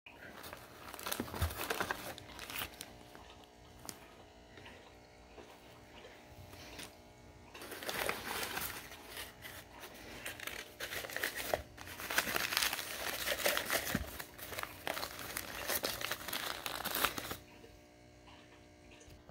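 Packing paper and plastic bags crinkling and rustling as a shipping box is unpacked by hand, in several bursts, the longest and loudest near the end, then stopping about two seconds before the end.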